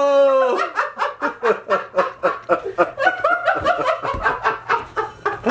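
A man laughing hard, in quick, even bursts of about four a second.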